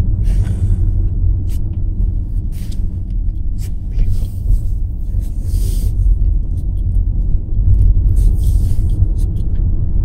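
A car driving along a road: a steady low rumble of engine and tyres, with a few short hissing scrapes over it.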